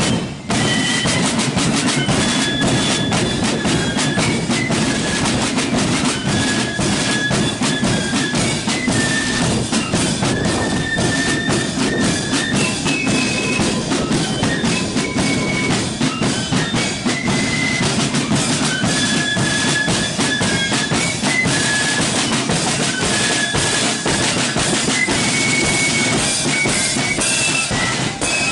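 Marching flute band playing a tune: flutes carry the melody over side drums and bass drum.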